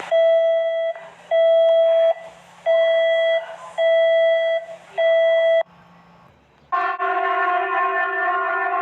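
Emergency alert alarm tones. Five loud beeps of one steady pitch, evenly spaced about a second apart, then after a short pause a steady multi-pitched alarm tone starts near the end.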